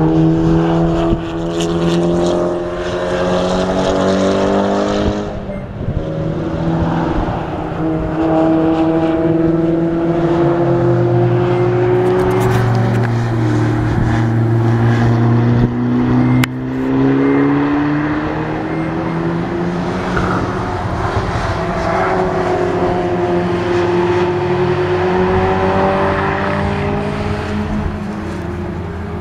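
Race car engine running hard around a circuit. The pitch climbs and drops again and again as the car accelerates, shifts gear and lifts off for corners.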